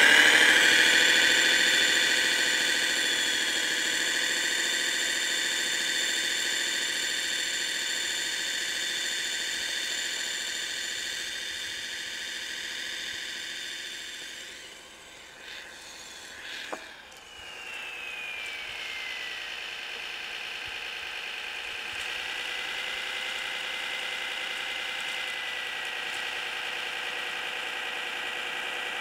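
RC snowcat's sound module playing an engine sound through its small speaker, with steady high whining tones over it. It is loudest at the start and fades, dips with a falling pitch about halfway through, then settles to a steady note.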